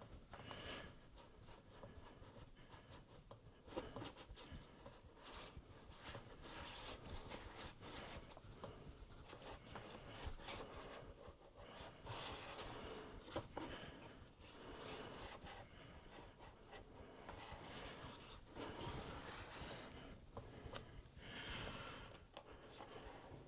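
Faint scraping and rubbing of a pizza-cutter-style opening wheel rolled along the edge of an iMac's glass display, slicing through the adhesive strip in repeated strokes, with a few small clicks.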